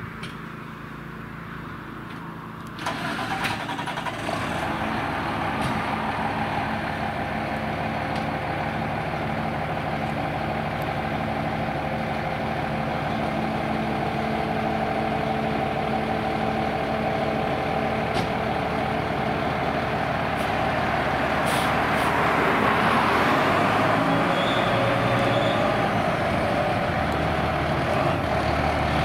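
Fire apparatus diesel engine starting about three seconds in, then idling steadily and slowly growing louder.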